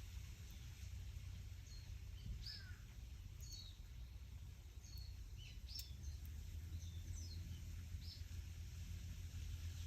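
Small birds chirping at intervals, a dozen or so short high calls, over a steady low rumble of wind.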